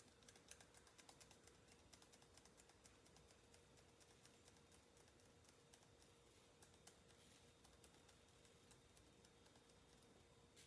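Near silence: room tone with a faint steady hum and many faint, irregular small clicks.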